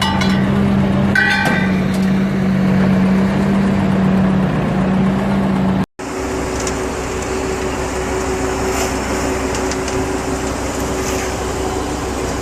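Asphalt recycling machine's engine running steadily, with a couple of faint clicks about a second in. About six seconds in the sound cuts abruptly to a different steady machine hum.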